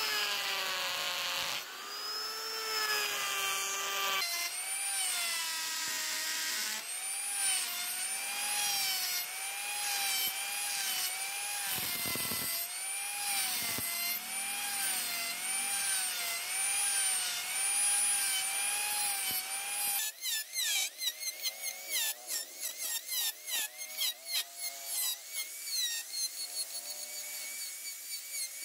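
Electric die grinder with a rotary burr carving hardwood: a high whine whose pitch wavers up and down as the burr bites and eases. About two-thirds of the way through it turns choppy, with quick repeated dips as the burr makes short cuts.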